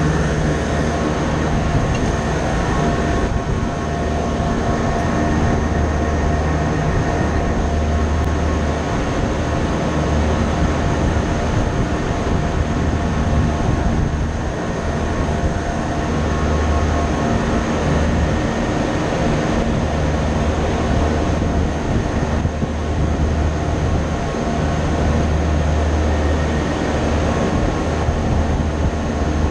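Machinery running steadily: a continuous drone with several held tones, under a low rumble that swells and drops every few seconds.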